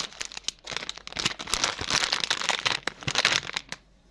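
Packaging being crinkled and crackled in the hands as a blind-box toy is unwrapped, a dense run of rustles and crackles that stops near the end.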